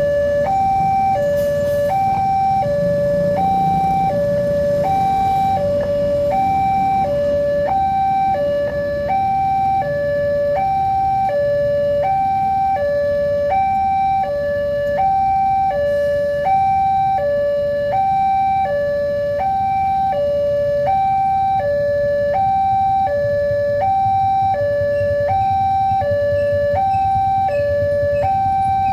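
Railway level-crossing warning alarm sounding steadily: an electronic two-tone signal switching evenly between a higher and a lower note, each held under a second, warning that a train is approaching. A low rumble runs underneath.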